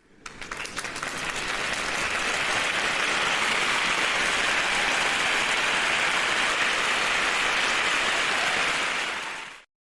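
Applause: a few scattered claps swelling within a couple of seconds into steady, dense clapping that fades out at the very end.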